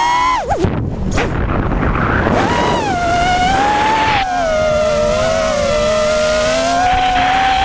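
Racing quadcopter's 2600kv brushless motors whining, the pitch rising and falling with throttle. About half a second in the whine drops away sharply and a noisy rush takes over for about two seconds. Then the motors spool back up and hold a steady whine.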